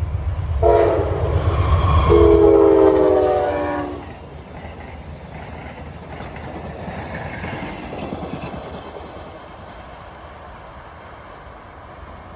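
Amtrak Downeaster passenger train sounding its horn in one long blast that drops to a lower pitch about two seconds in as the train passes. The horn stops about four seconds in, and the rumble and rail clatter of the passenger cars rolling by follow, fading slowly.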